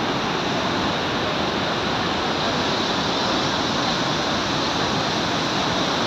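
Steady rushing of a waterfall and a river in flood, the heavy, churning water pouring over the falls and past boulders.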